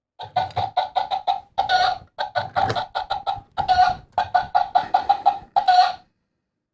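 Egg-timer alarm playing a recorded hen cackling, marking the end of a 10-second countdown: runs of quick clucks, about five a second, each ending in a longer drawn-out cackle, three times over before it stops about six seconds in.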